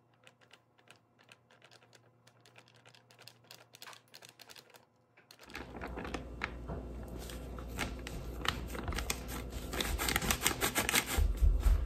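Plastic bag crinkling and rustling as flour is scooped out of it by hand, a dense run of small crackles. It is nearly silent for about the first five seconds, then the crinkling comes in and grows louder toward the end.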